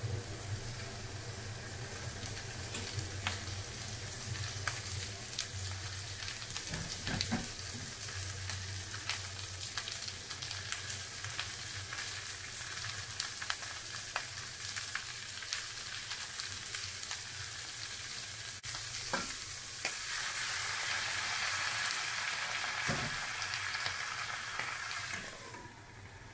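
Olive oil and vegetables sizzling in a hot frying pan, a steady hiss with scattered crackles and pops. About twenty seconds in the sizzle turns into a louder hiss as the boiling water goes in, then drops away sharply as the lid goes on.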